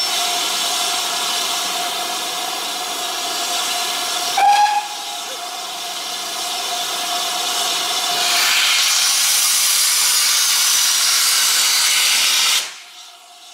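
Steam locomotive letting off steam: a loud, steady hiss with a short louder burst about four and a half seconds in. The hiss grows louder and brighter about eight and a half seconds in, then cuts off suddenly near the end.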